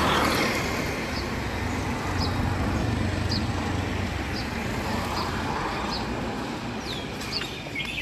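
Street ambience: a steady traffic hum, with a small bird chirping about once a second.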